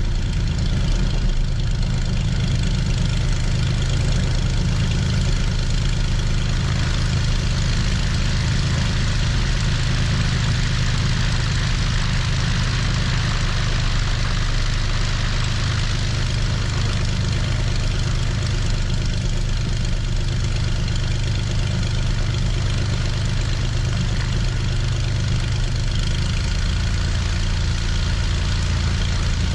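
Cessna 182's six-cylinder piston engine and propeller running steadily at low taxi power, heard from outside the cabin.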